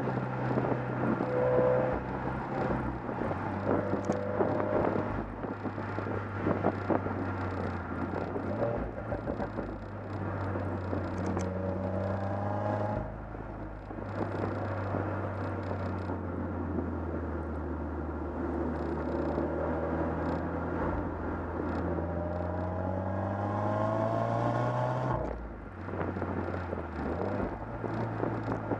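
2015 Subaru WRX's turbocharged 2.0-litre flat-four boxer engine running under load. The exhaust pitch climbs slowly as the car accelerates, then drops sharply twice, about halfway through and near the end, as at upshifts, over steady road and wind noise.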